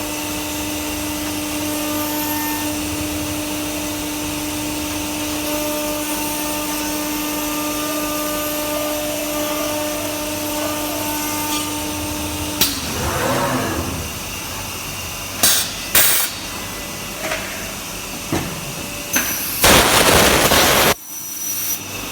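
CNC router spindle running with a steady whine over a constant rushing noise, then spinning down with a falling pitch a little past halfway. After that come a few sharp clicks and a loud hiss lasting about a second near the end.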